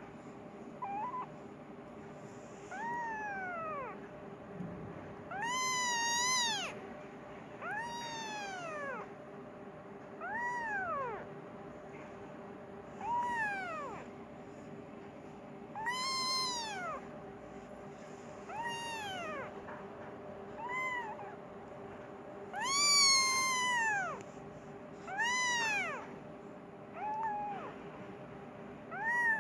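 Persian kitten meowing repeatedly: about a dozen high, drawn-out meows, each rising then falling in pitch, every two seconds or so.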